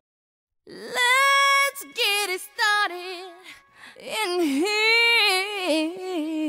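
A high solo voice singing unaccompanied, with vibrato, in short phrases broken by brief pauses; it comes in about half a second after silence.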